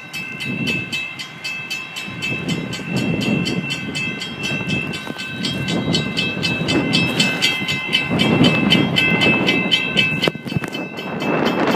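Railroad crossing warning bells ringing, with rapid, evenly spaced strikes, several a second, over a steady ringing tone: the crossing signal has activated. A low rumble swells and fades underneath.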